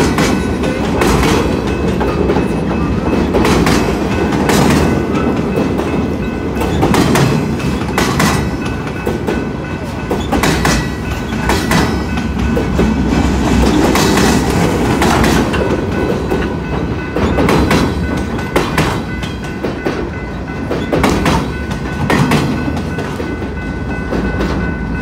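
A freight train of empty wind-turbine flatcars rolling past at close range: a steady rumble with repeated clacks as the wheel sets pass over the rails, about one a second.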